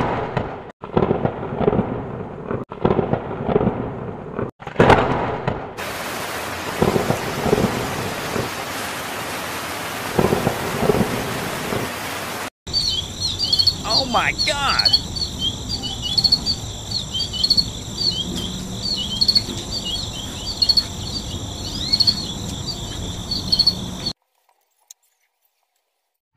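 Storm sound effects: thunder claps for about the first six seconds, then a steady hiss of heavy rain. After an abrupt cut, crickets chirp steadily for about eleven seconds and stop suddenly about two seconds before the end.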